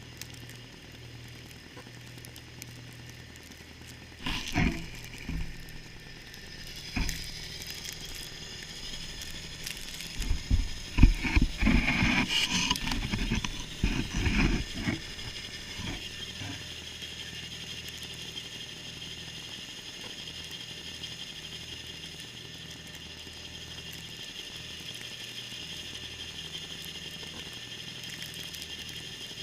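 A John Deere 318 garden tractor with its Model 49 snowblower running at a steady hum, with a few sharp knocks and a burst of mechanical clatter about halfway through.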